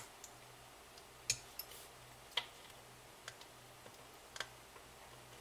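About half a dozen faint, sharp, irregularly spaced clicks of a metal pick and tweezers against an Apple Watch's logic board as a small metal heat-sink shield is prised off it.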